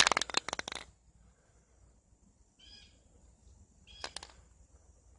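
Aerosol spray paint can being shaken, its mixing ball rattling rapidly, stopping about a second in. Then two short, high calls from an animal follow a second or so apart.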